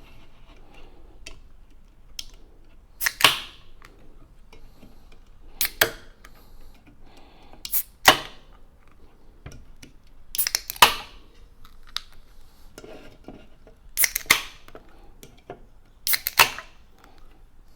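A series of sharp cracks or clicks, each with a brief hiss-like tail, one every two to three seconds, about eight in all and a few of them in quick pairs.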